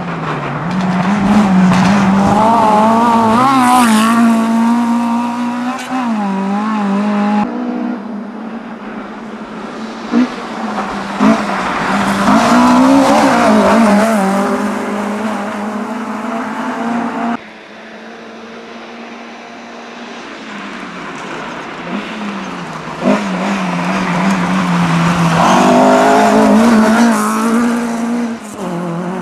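Three rally cars racing on a snow-covered stage one after another. Each engine revs hard and drops back again and again through gear changes and lifts as it passes. There are a few sharp pops, and the sound changes abruptly from one car to the next.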